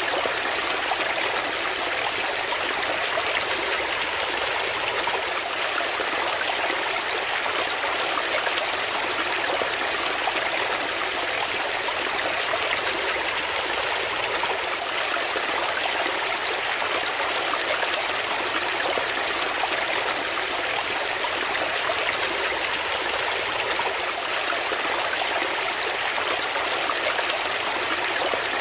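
A small rocky brook running and splashing over stones: a steady, even rush of water with no change in level.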